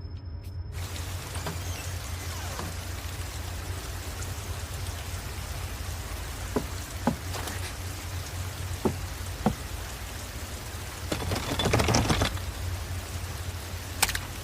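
Steady rain with a low hum under it. A few sharp taps sound in the middle, and the noise swells louder for about a second near the end.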